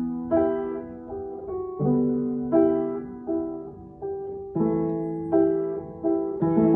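Solo piano playing a slow instrumental passage: chords struck about every three quarters of a second, each left to ring and fade.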